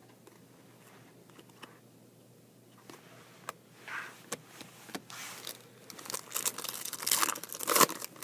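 Foil trading-card pack wrapper being crinkled and torn open, a crackling that builds over the last three seconds and is loudest near the end. Before it, a few soft clicks as chrome cards are handled.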